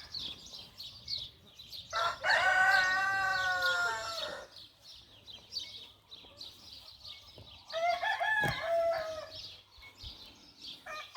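Roosters crowing twice, one long crow about two seconds in and a shorter one about eight seconds in, with high chirping of other birds throughout.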